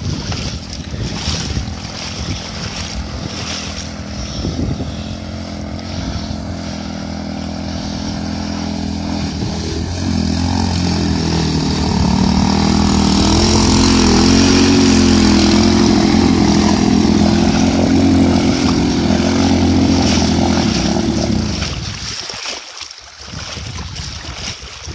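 A 2x2 all-wheel-drive motorcycle's engine runs steadily as the bike wades through shallow water, with water churning around the wheels. The engine is loudest as the bike passes close by about midway. Its sound drops away sharply near the end.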